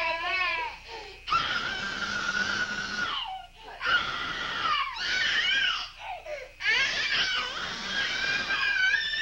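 A toddler crying hard: a wavering cry, then a run of long, high wails broken by short pauses for breath.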